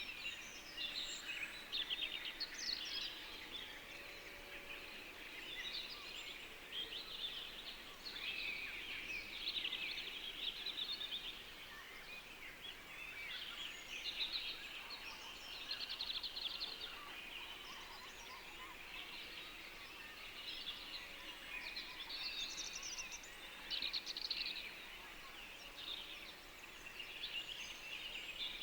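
A chorus of many birds singing and calling at once, short overlapping chirps and phrases without a break, over a faint background hiss.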